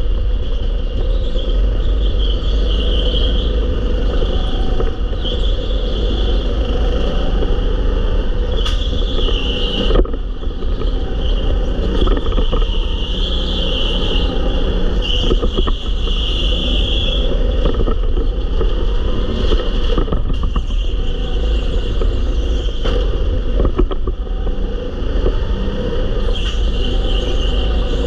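Go-kart driven at speed, heard from a camera mounted on the kart: a loud steady rumble with a higher note that swells and fades every few seconds through the corners, and a few sharp knocks as the kart jolts.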